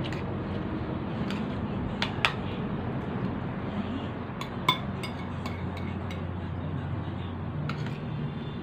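Metal spoon clinking and scraping against a plate while eating: a scatter of light clicks, the loudest a ringing clink about four and a half seconds in, over a steady low background hum.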